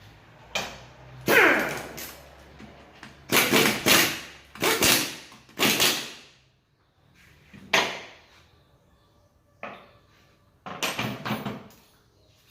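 A series of about eight sharp knocks and metallic clanks at uneven intervals, some ringing briefly, with a falling scrape about a second in.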